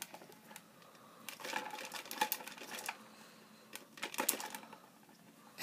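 Plastic Zelf Toadstool Twirl and Swing playset rattling and clicking as its top is twirled by hand and the swing whirls around the stem: a run of light, irregular clicks that comes in two clusters.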